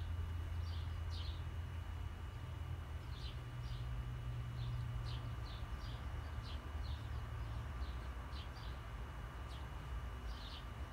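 Birds chirping: short, high calls repeating irregularly, over a steady low rumble.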